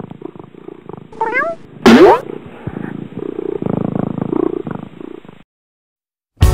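A domestic cat purring, with a few short chirping mews about a second in and a loud meow about two seconds in. The purring stops about a second before the end.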